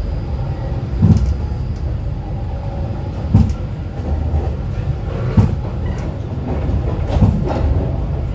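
Škoda ForCity Classic 28T tram running along the track: a steady low rumble with a sharp knock about every two seconds.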